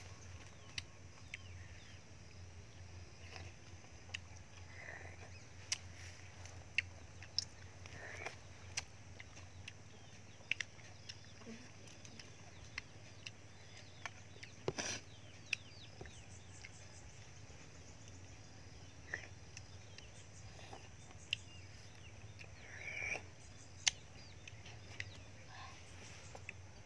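Quiet eating of cooked snails: scattered sharp clicks of snail shells and a pick being handled, with a few short sucking slurps as the meat is drawn from the shells.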